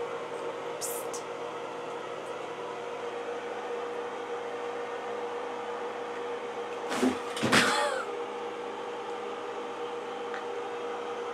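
Steady machine hum with a constant pitched tone, like a running fan. About seven seconds in comes a brief louder sound: a sharp knock followed by a short sound that bends in pitch.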